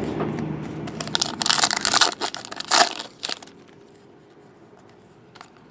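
Crinkling and tearing of trading-card pack wrapping as it is handled. A dense crackle runs for the first three seconds, then dies away.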